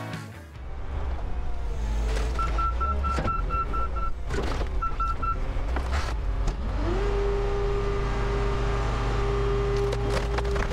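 E-Z Crusher portable car crusher running its engine and hydraulics to press a pickup truck flat. A reversing alarm beeps in two runs early on, and a little past halfway a whine rises in pitch and then holds steady as the crushing lid comes down under load.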